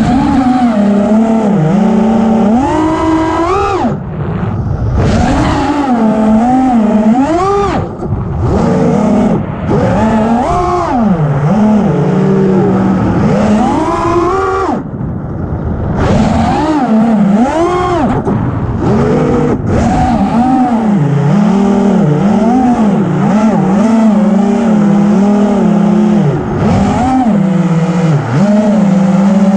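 FPV racing quadcopter's brushless motors and propellers whining, heard from the onboard camera, the pitch swinging up and down constantly with the throttle. It briefly drops away a few times, as the throttle is cut.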